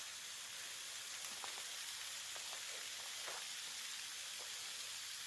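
Waterfall: falling water making a steady, even hiss.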